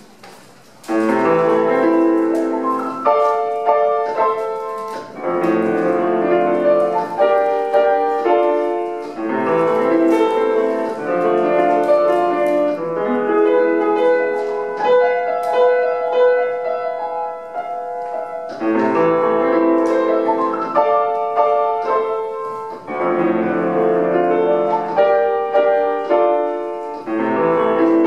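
Solo piano playing a classical recital piece, starting about a second in after a brief hush and running on in repeated chordal phrases.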